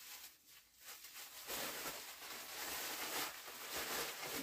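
Thin black plastic bag crinkling and rustling as it is pulled out and handled, starting about a second and a half in.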